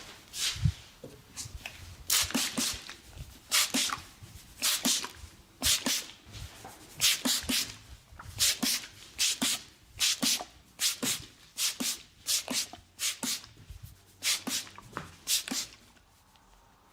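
Hands striking skin in a percussive massage: sharp slaps and chops in quick groups of two or three, about one group a second, stopping near the end.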